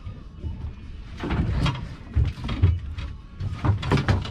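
Irregular knocks and thumps on a small fishing boat as anglers handle a freshly caught tope at the gunwale, over a steady low rumble.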